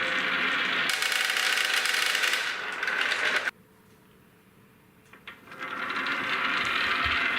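A group of marbles rolling and clattering down a long wooden slope track in a dense, continuous rattle. It cuts off abruptly about halfway through, there are about two seconds of near silence, and then the clatter builds up again.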